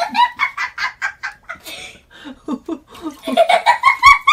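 A baby laughing in rapid, high-pitched bursts, several a second, with a second run of laughter near the end.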